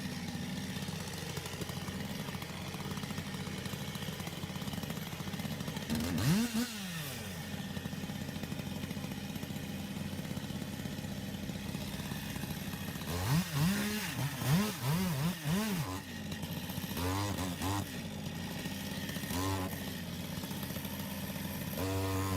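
Chainsaw engine idling steadily and being revved up and back down in short throttle blips: once about six seconds in, four quick revs in a row about halfway through, then a few more near the end.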